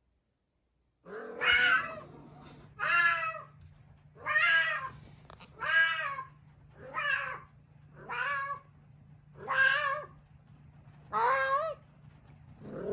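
A cat meowing over and over: eight long, drawn-out calls, each rising and then falling in pitch, about one and a half seconds apart, over a faint steady low hum.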